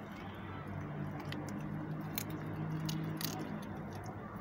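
A dog chewing and biting meat scraps, with a few short sharp clicks spread through, over a low steady hum.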